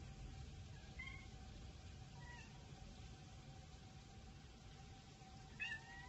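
A cat meowing three short times, about one, two and a half and five and a half seconds in, the last the loudest, over the faint steady tone of a distant outdoor warning siren.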